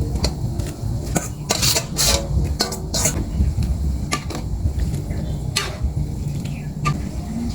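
Metal utensil clinking and scraping against a cooking pot while stirring, in irregular clicks that come thickest in the first few seconds, over a steady low rumble.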